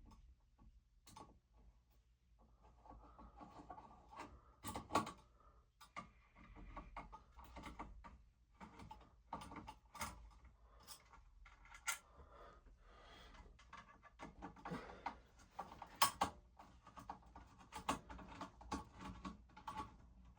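Small screws being put back into an old ceiling fan's motor with a screwdriver: faint scattered clicks, taps and short scrapes of metal on metal.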